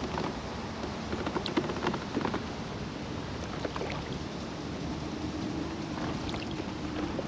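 Steady low rumble of road traffic by the pond, with scattered light clicks and small water sounds over it.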